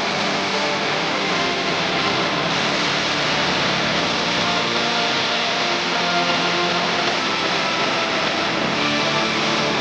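Loud, dense music at a steady level, with many held notes under a constant wash of noise.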